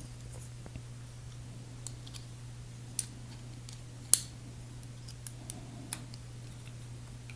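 Scattered sharp clicks and taps of small metal parts being handled: a folding knife's pivot hardware and Torx driver bits being fitted during reassembly. The loudest click comes about four seconds in.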